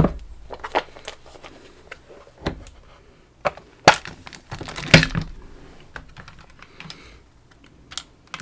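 Small metal tools, keys and padlock parts handled on a bench: irregular clicks and clinks, with a few louder knocks about four and five seconds in.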